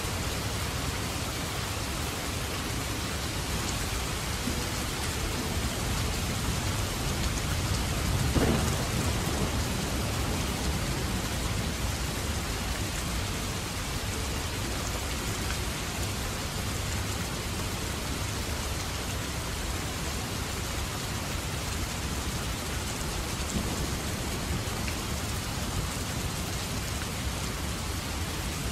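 Heavy rain falling in a steady downpour, with a rumble of thunder about eight seconds in, the loudest moment.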